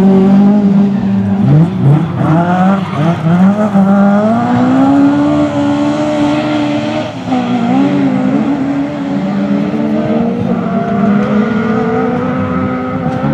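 Rally car engine at full power: the revs rise and fall quickly several times in the first three seconds, then climb steadily under acceleration, dip briefly just past the midpoint and hold high.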